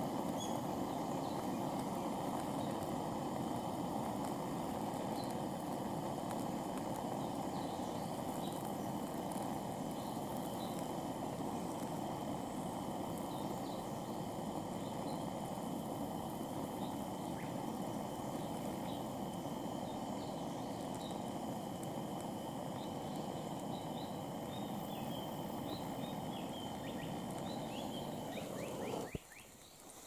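Steady rushing noise with a faint steady hum and scattered bird chirps; the rushing cuts off abruptly about a second before the end.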